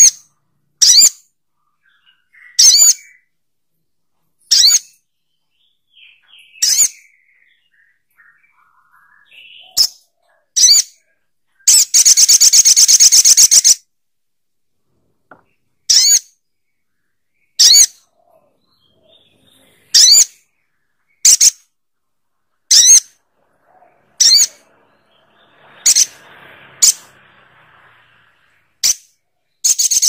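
Olive-backed sunbird (sogok ontong) calling: short, sharp, high chips repeated every second or two, broken near the middle by a fast trill lasting about two seconds.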